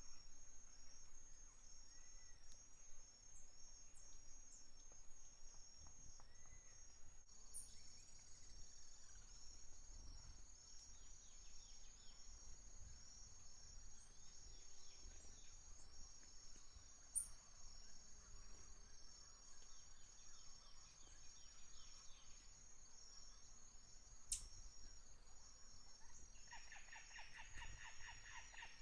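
Faint outdoor ambience: a steady, high, evenly repeating insect chirring with a few short bird chirps, and a rapid run of pulses near the end.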